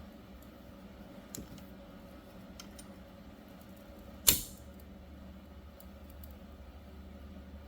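Faint clicks and handling noises of hand tools and brake parts, with one loud, sharp knock a little over four seconds in, over a steady low hum.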